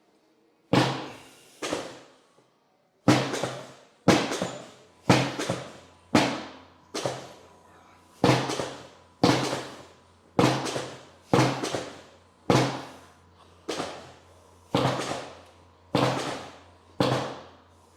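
Chiropractic drop table's drop pieces slamming down again and again as the chiropractor thrusts into the low back and pelvis, one or two sharp thunks a second, often in pairs, each dying away quickly.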